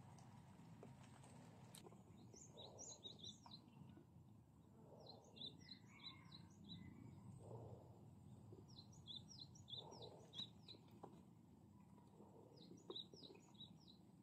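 A songbird singing faintly, repeating a short phrase of quick, high, downward-sweeping notes four times, every three to four seconds, over faint outdoor background noise.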